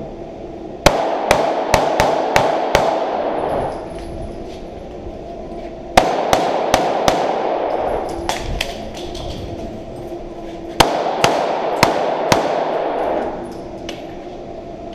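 Handgun shots fired in three rapid strings of about five or six shots each, a few seconds apart, each string trailing off in reverberation.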